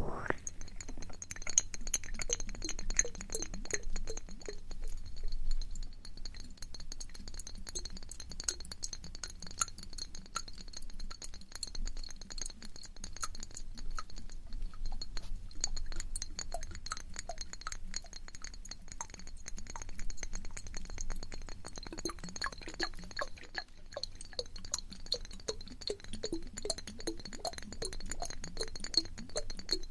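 ASMR ear-cleaning sounds on a microphone: a dense stream of small crackly clicks and light clinks, as from an ear pick working close to the mic. A steady high-pitched ringing runs underneath.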